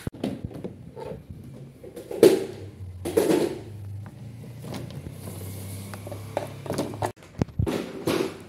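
Hollow plastic wardrobe panels knocking and clattering against each other as they are lifted and shuffled in a cardboard box. The two loudest knocks come about two and three seconds in, with a few more near the end.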